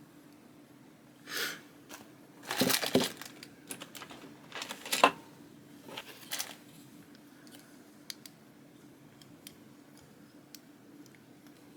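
Plastic packaging being handled: a few short bouts of crinkling and rustling in the first half, then scattered small clicks and taps.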